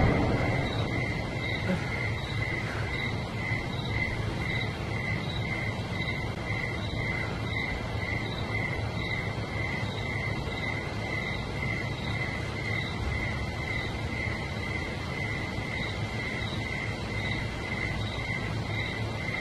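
Night ambience: an evenly repeating high chirp, a few times a second, over a low steady hum.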